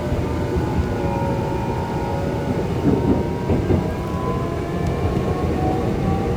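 Electric train running, heard from inside the carriage: a steady rumble of wheels on track with the whine of the traction motors, several tones drifting slowly up and down in pitch.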